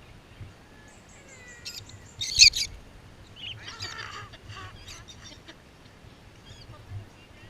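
A bird's loud squawk about two seconds in, followed by a run of shorter calls.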